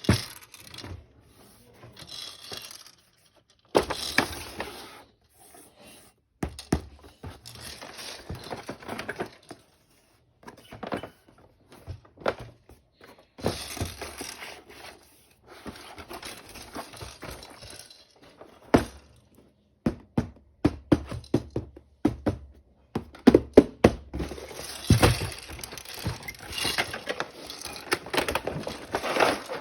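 Toy packaging being handled and opened: irregular knocks, clicks and crackling of box and plastic wrapping, with short pauses, getting busier and louder in the last several seconds.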